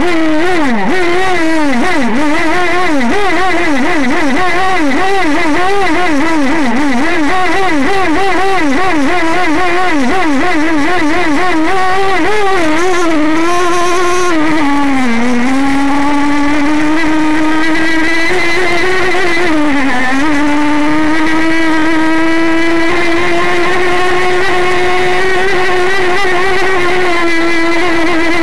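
O.S. 21 RXM .21 nitro glow engine of an RC model power boat running at high revs, heard from on board. Its pitch wavers quickly up and down through the first half, dips briefly twice, then holds steady and high as the boat runs at speed.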